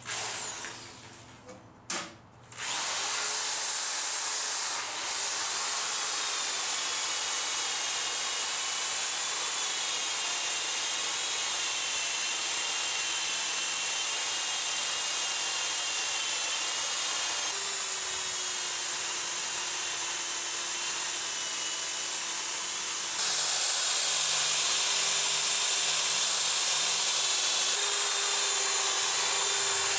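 Corded electric drill spinning a wire wheel brush against the steel body of a woodstove, scouring off rust and old paint. After a couple of short bursts it runs steadily with a faint whine, getting louder about three-quarters of the way through.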